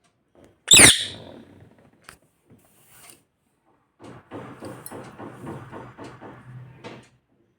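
Pet parrot giving one loud, shrill squawk about a second in. A quieter, rapid rasping sound follows from about four seconds in.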